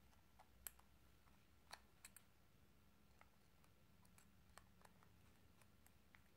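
Faint, scattered clicks of a small screwdriver turning a post screw on the metal deck of a Gemztek Lucky Star 2 dual-coil RTA, against near silence.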